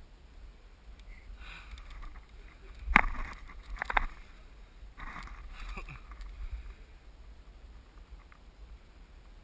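Camera handling noise: faint rustling with two sharp knocks about three and four seconds in, the first the louder, over a low steady hum.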